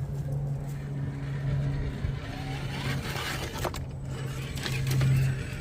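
RC rock crawler (Vanquish Phoenix VS4-10) crawling over an obstacle: its electric motor and gear drivetrain give a steady low whine that stops near the end, with a few clicks and scrapes of the tyres on the course.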